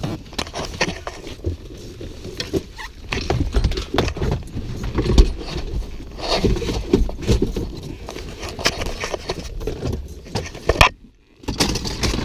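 Irregular metallic clicks, clinks and rattles of hand tools and parts being handled while working inside a car. The sound cuts out suddenly for about half a second near the end.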